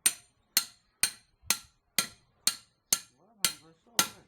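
Hammer striking metal in a steady rhythm, about two ringing blows a second, nine in all.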